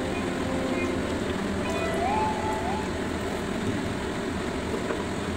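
A steady rushing noise, with a short thin tone that rises and then holds for under a second, about two seconds in.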